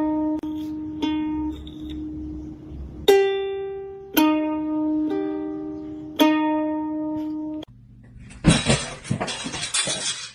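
Background music of single plucked notes on a ukulele-like string instrument, each held about a second. Some eight seconds in, the music stops and a loud, rough, crackling noise takes over until the end.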